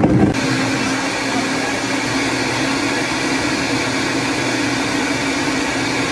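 High-powered countertop blender running at full speed, blending a smoothie of fruit, greens and liquid. The start is rougher while the tamper pushes the contents down, then it settles into a steady whir about half a second in.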